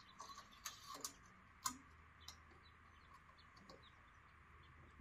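Near silence, with a few faint short ticks in the first half.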